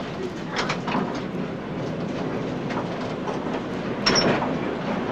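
Electric tram running along street track, heard from the driver's cab: a steady rumble of wheels on rail with occasional clicks and knocks, and a louder clatter about four seconds in.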